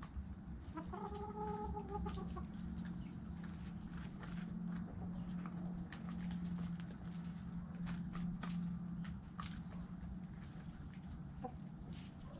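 Backyard chickens clucking, with one hen giving a drawn-out pitched call about a second in, over scattered sharp clicks. A steady low hum runs underneath and fades out about nine seconds in.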